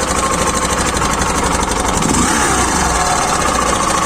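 Hero Glamour BS6 motorcycle's single-cylinder engine running at idle with a strange, unusual noise that servicing and replaced parts have not cured; the owner cannot tell where on the bike it comes from.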